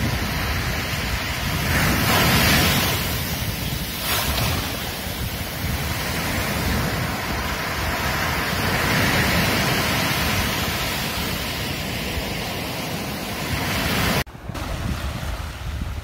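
Small waves breaking and washing up a sandy beach, with wind on the microphone; the surf swells about two seconds in and again around nine seconds. About fourteen seconds in the sound cuts abruptly to a quieter recording of lapping shallow water with wind rumble on the microphone.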